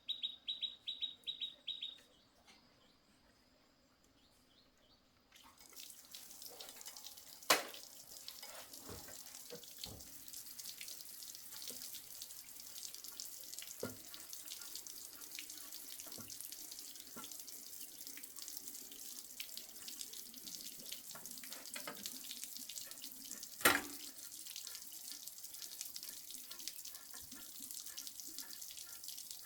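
A steady rushing hiss like running or spraying water sets in about five seconds in, with two sharp knocks, one near the start of it and one near the end. It is preceded by a quick run of high chirps in the first two seconds.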